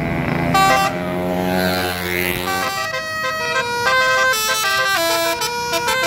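Bus telolet horn, a multi-trumpet air horn, starting about half a second in and playing a quick tune of stepping notes that turns faster and choppier partway through, over a low engine rumble in the first couple of seconds.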